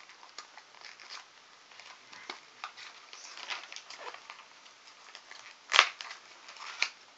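Packaging being handled and rustled while parts are unpacked: scattered small clicks and crinkles, with one sharp knock a little before six seconds in.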